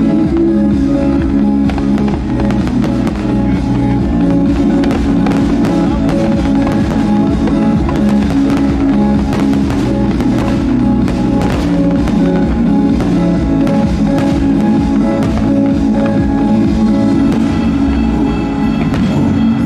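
Music with drums, with many firework bursts banging and crackling through it.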